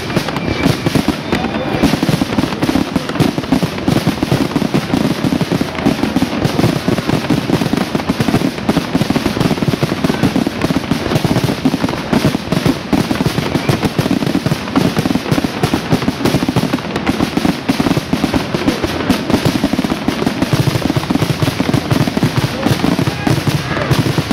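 Dense barrage of aerial firework shells bursting, many loud bangs and crackles overlapping in rapid succession without a break.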